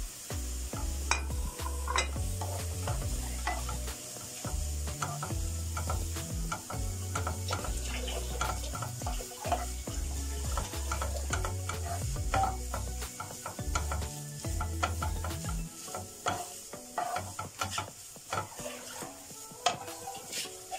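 Wooden spatula stirring and scraping shredded boiled chicken and fried onion in a nonstick frying pan, with a light sizzle and many irregular scrapes and taps. A low rumble runs underneath and stops about three-quarters of the way through.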